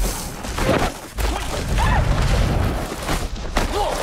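A sudden heavy smashing impact as a person is struck and thrown, with debris flying, followed by low rumbling and thuds and a few short pained cries.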